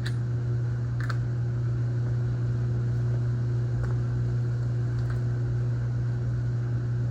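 Steady low hum with a few sparse, light clicks from parts or tools being handled, five in all, spread over the first five seconds.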